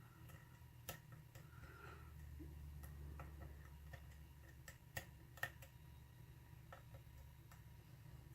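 Faint, scattered ticks and clicks of a thin steel lock pick working the pins of a pin-tumbler lock under light tension, with a couple of sharper clicks a little past the middle.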